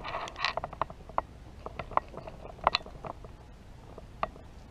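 Airsoft fire: about a dozen sharp cracks and clicks at irregular spacing, the louder ones half a second to a second apart, easing off near the end.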